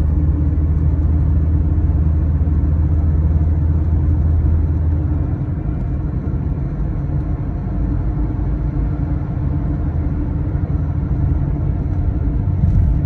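Steady low road and engine rumble heard inside a moving car's cabin at highway speed. A deep drone in it drops away about five seconds in.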